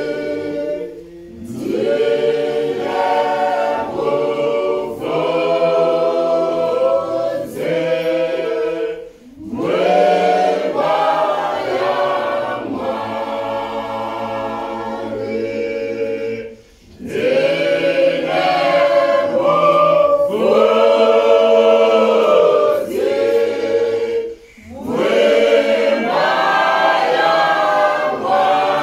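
Mixed church choir singing a Shona hymn a cappella in harmony. Long sung phrases are broken by brief pauses every seven or eight seconds.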